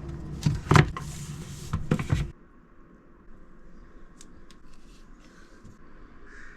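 Workbench handling sounds, with wax paper and wood boards being laid out: two sharp knocks and a rustle. About two seconds in, these cut off abruptly to a quiet room with a few faint clicks.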